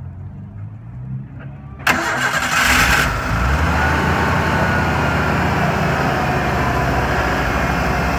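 1991 Ford F-150's engine starting about two seconds in: it catches suddenly, runs loudest for about a second, then settles into a steady idle.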